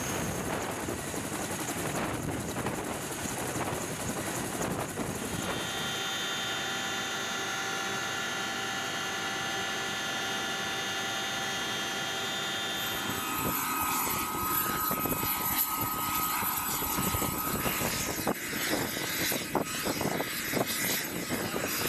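CH-47 Chinook helicopter's turbine engines and rotors running steadily, with a high whine whose pitch and character shift twice. Sharp clicks and knocks come in over the noise in the last few seconds.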